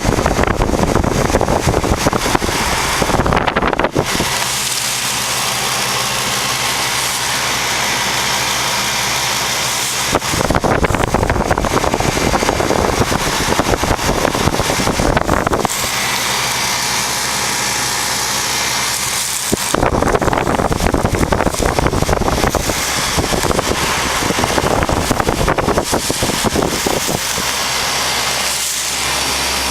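1989 Lennox heat pump outdoor unit running in cool mode: the compressor humming steadily under the rush of the condenser fan. Three long stretches of heavier rushing air buffet the microphone.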